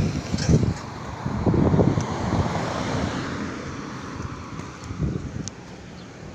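Wind buffeting the phone's microphone in gusts, over the noise of cars driving past on the road, loudest in the first half.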